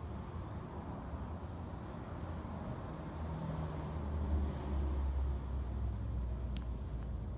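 A pet snoring: a low rumble that swells for a couple of seconds in the middle, with two faint clicks near the end.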